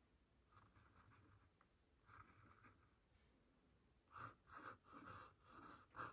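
Faint scratching of a fountain pen nib on sketchbook paper as it draws ink lines: a few soft strokes, then a quicker run of about five short strokes near the end.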